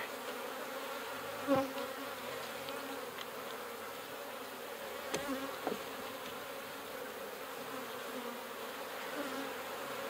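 Honeybees buzzing in a steady hum around an opened hive during a frame inspection, with a few light knocks about a second and a half in and again around five seconds in.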